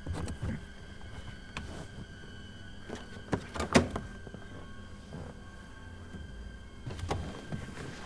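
Knocks and thumps of a man thrashing about inside a car's cabin, striking the door and interior, with the loudest knock just before four seconds in. There is a clunk about seven seconds in as the driver's door is opened.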